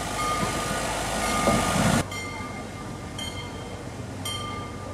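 Wismar railbus running on the track, its engine and wheels growing louder as it comes close, then dropping abruptly after about two seconds to a quieter, steady running sound from farther off.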